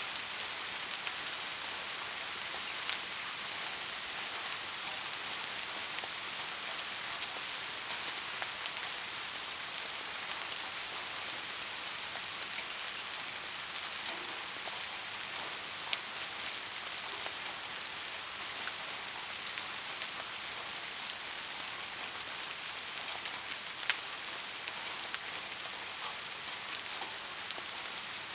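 Steady soft rain: an even hiss of rainfall with occasional sharper single drops ticking on a surface.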